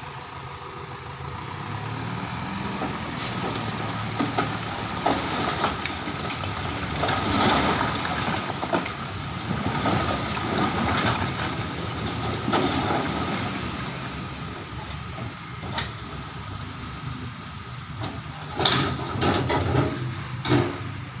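Dump truck engine running with its tipper bed raised while the load of fill rocks slides off the bed and clatters and thuds onto the pile, with a few louder knocks of falling stone near the end.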